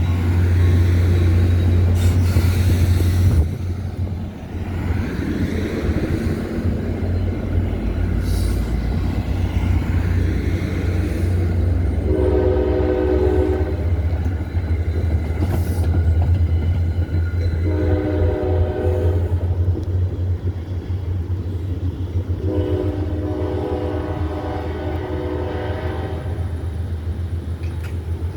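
NJ Transit commuter train's horn sounding three blasts, the last the longest, over heavy low wind rumble on the microphone.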